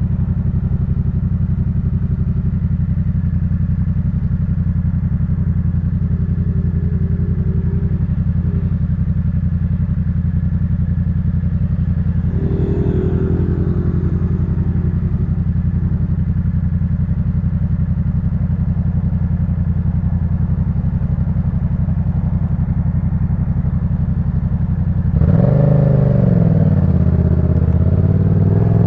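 Yamaha MT-07 parallel-twin engine through a Jeskap K4 full aftermarket exhaust, idling steadily. About 25 seconds in it gets louder as the bike pulls away, the engine note dipping and then rising as it accelerates.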